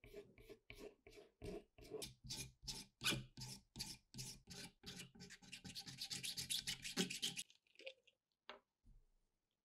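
Wooden RPG-7 grip being scraped with a blade and sanded by hand, in even back-and-forth strokes about three a second that grow quicker about three seconds in and stop a little over seven seconds in. A few light clicks follow near the end.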